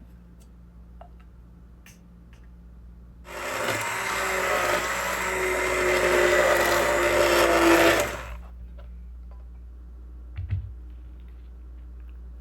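Countertop electric blender running for about five seconds, its motor pitch creeping up slightly, then cutting off. There are a few light clicks before it and a short knock afterwards.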